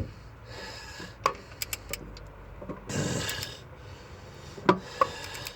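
Torque wrench ratcheting on a cylinder head bolt that keeps turning without tightening: scattered sharp clicks and metal rubbing, with louder clicks about a second in and twice near the end. The owner fears the bolt is cross-threaded or stripped.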